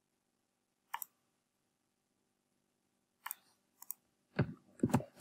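Faint computer mouse clicks: a double click about a second in and two more past three seconds. Near the end come a few heavier keyboard keystrokes as a word is typed.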